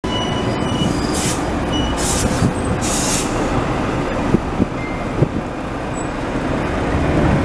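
Tatra T5C5 tram running slowly, heard from inside the car as a steady rumble of motors and wheels on rail. There are three short bursts of hiss in the first few seconds and a few sharp knocks around the middle.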